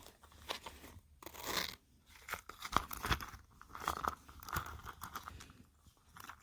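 Faint, irregular rustling, crinkling and light taps of a small key pouch being handled and turned over in the hands.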